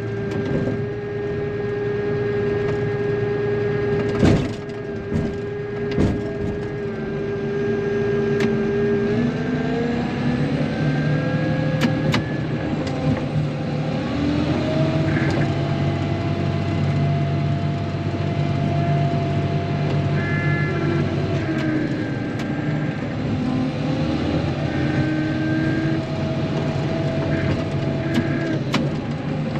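Diesel engine of a Caterpillar wheel loader heard from inside the cab. It runs steadily, then revs up and eases back down several times as the loader is worked. A couple of sharp knocks come about four and six seconds in.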